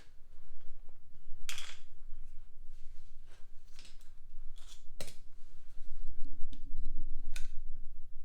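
Hand tools being handled on a wheel: a few sharp metallic clicks and scrapes, over a steady low hum.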